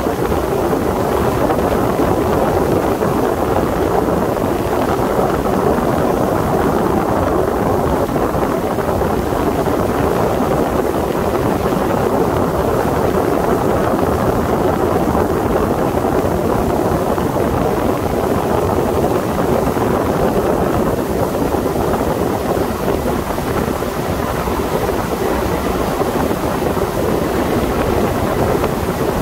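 Sea Ray 21 MC motorboat under way, its engine running steadily, with wind buffeting the microphone.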